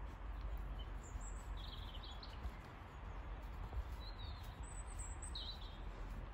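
Small birds chirping in a few short, high calls over a steady low rumble of outdoor background noise.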